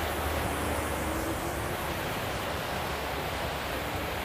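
Vehicles driving through standing floodwater on a road: a steady rushing wash of water thrown up by the tyres, with a faint engine hum underneath.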